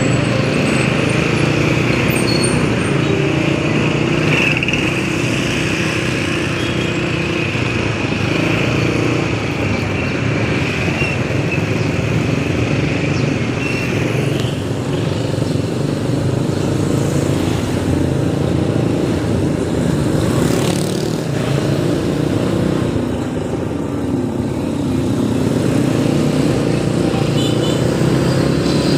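Motorcycle running steadily at low speed through town traffic, its engine hum mixed with road noise.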